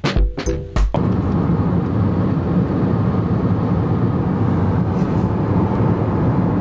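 Steady road and engine noise inside a moving car's cabin. It follows a second of music with heavy beats that cuts off about a second in.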